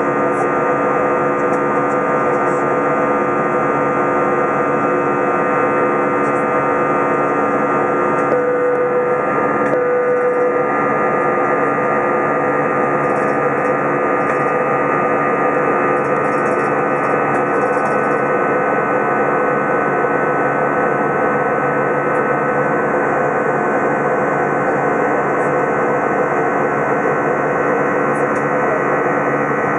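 Airbus A320 cabin noise in flight, heard from a window seat beside the wing engine: a steady, loud jet-engine drone and airflow rush with several steady engine tones running through it.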